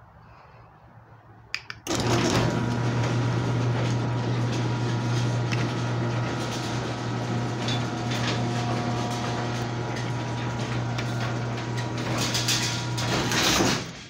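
Chamberlain WD832KEVG garage door opener starting with a click and running steadily for about twelve seconds. Its motor hum mixes with the rattle of the sectional door travelling along its tracks, then stops abruptly near the end.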